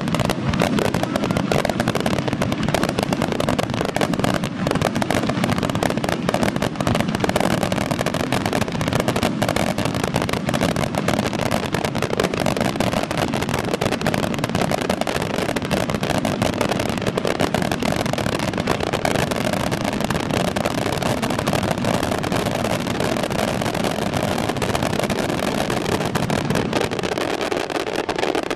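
Fireworks barrage: many aerial shells bursting in rapid, overlapping succession, a continuous dense crackle and rumble of explosions with no pause.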